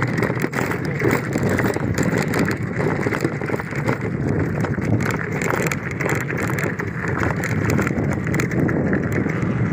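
Motorcycle riding over a rough, stony dirt track: the engine runs under loud wind buffeting on the microphone, with many short jolts and rattles from the bumpy surface.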